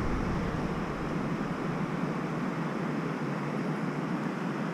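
Steady rushing of flowing river water, an even hiss with no separate splashes.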